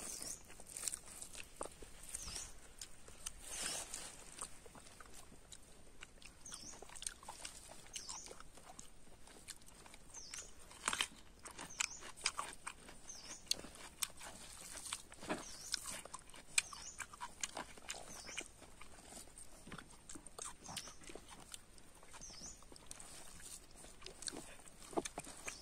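Close-up eating sounds of a person eating rice and curry by hand: chewing, lip smacks and wet clicks, with fingers squishing rice against a dried leaf plate. Short high chirps repeat every second or two, over a faint steady high tone.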